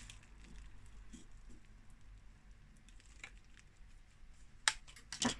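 Faint scattered clicks and taps of a thin metal pry tool working at a heated phone back cover, with two sharper clicks about half a second apart near the end.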